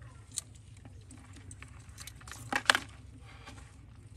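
Metal tongs clicking and scraping against rocks while picking up scorpions, with a few light clicks and a louder double clack about two and a half seconds in.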